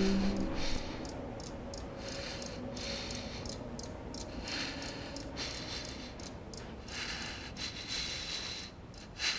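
Heavy nostril breaths: a person breathing hard through the nose in quick, sharp breaths, about two a second and unevenly spaced, with one stronger breath near the end. A held low music note dies away at the very start.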